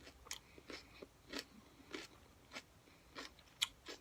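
A person chewing a crisp hot pepper, with short crunches about twice a second and the sharpest crunch near the end.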